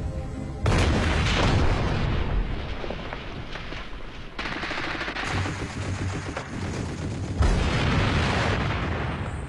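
Battle sound of dense rifle and machine-gun fire mixed with blasts, coming in three sudden waves: about a second in, near the middle, and again near the end.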